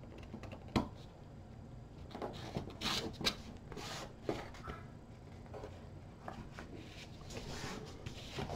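Hands handling medium-weight chipboard panels on a wooden table: scattered faint rustles of board being rubbed and pressed flat, with a few light taps.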